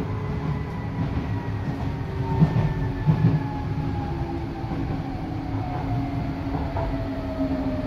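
Docklands Light Railway B07-stock train heard from inside the carriage: the steady running rumble of wheels on rail, with an electric motor whine that falls steadily in pitch as the train slows.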